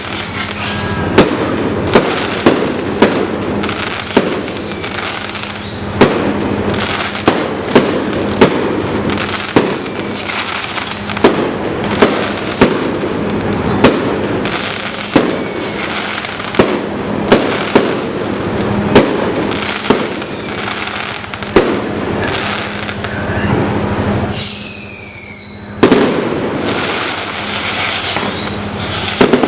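Aerial fireworks: a dense run of sharp bangs over constant crackling, with a high whistle falling in pitch every few seconds.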